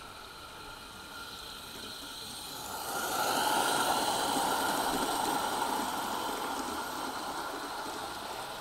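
A 16mm-scale live-steam garden railway train running past: a steady hiss with the rolling of small wheels on the rails. It swells about three seconds in and slowly fades.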